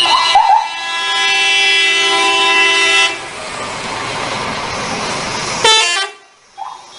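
A multi-tone 'telolet' bus air horn sounding a held chord of several notes for about two seconds, then a steady rushing noise, and a brief warbling horn blast near the end.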